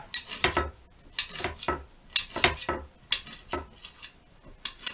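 Kitchen knife chopping a pile of fermented fireweed leaves on a cutting board: sharp knocks of the blade hitting the board, irregular, about two to three a second, with a pause near the end.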